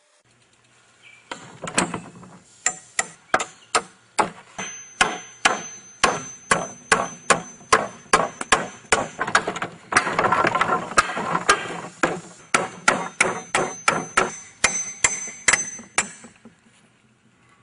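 A hammer striking a pry bar to drive its claw under nail heads in old wooden planks: a steady run of sharp blows, about two a second, with a longer rasping stretch about ten seconds in.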